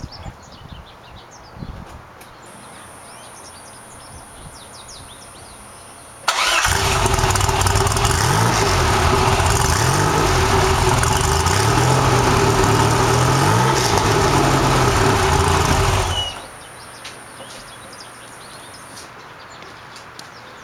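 1981 DeLorean DMC-12's PRV V6 with a cat-delete exhaust and aftermarket camshafts, heard from outside: it starts up suddenly about six seconds in, is revved up and down several times, and is switched off about ten seconds later.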